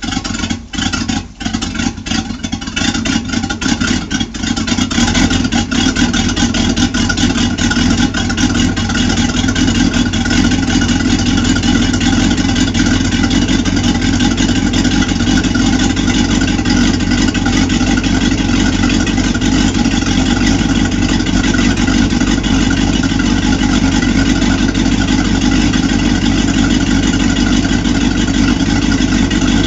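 Boat's V8 inboard engine running with a wet exhaust from twin transom outlets, water splashing from them. It runs unevenly with dips in loudness for the first few seconds, then settles into a steady run, on its sound check after winter lay-up.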